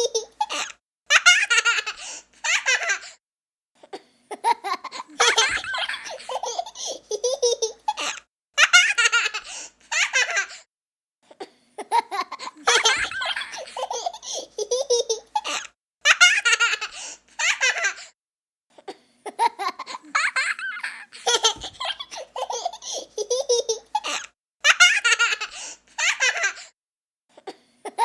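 A young child laughing in repeated fits of giggling, each bout lasting a second or two with short breaks between.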